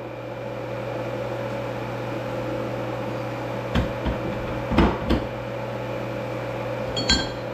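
Steady electrical hum of shop equipment, with a few light metal clunks from about four seconds in as steel flange parts are fitted onto a part clamped in a vise.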